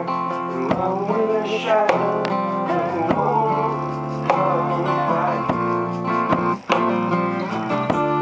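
Steel-string acoustic guitar strummed in chords while a man sings over it, with a brief break in the sound about six and a half seconds in.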